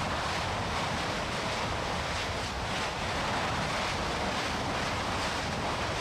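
Kilauea lava fountaining from a fissure vent: a steady rushing noise with faint crackles running through it.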